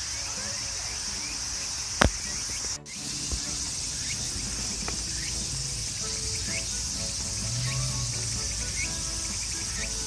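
Steady high-pitched chorus of crickets and other insects, with scattered short rising chirps. A single sharp click stands out about two seconds in, and the sound cuts out for a moment just after it.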